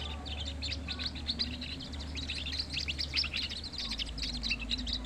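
Many small birds chirping at once: a dense run of quick, high, overlapping chirps that never lets up.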